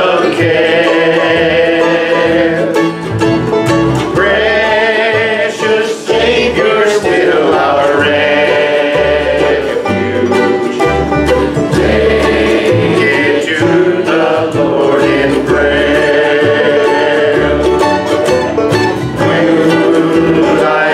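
Bluegrass band playing a song: mandolin, acoustic guitar, upright bass and banjo, with men singing.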